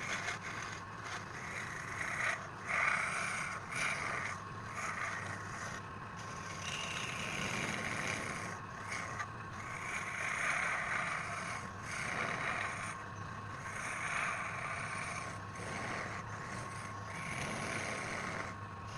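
Wood lathe running with a steady whine while the spinning wood is scraped in uneven passes of a second or a few seconds each.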